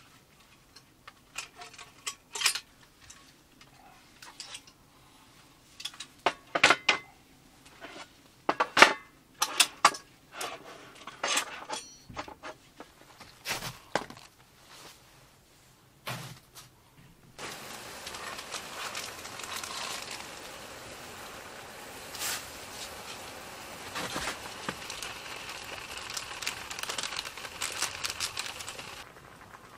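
Metal cookware and utensils clinking and knocking for a while. About halfway through, a steady crackling hiss of food cooking on the stove starts, and it cuts off suddenly near the end.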